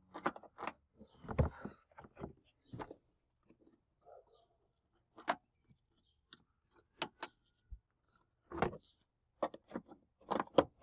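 Scattered light clicks and knocks of hard plastic interior trim and a plastic pry tool as a car's cargo-area side panel is prodded and pried at, the loudest knock about a second and a half in and a quieter stretch in the middle.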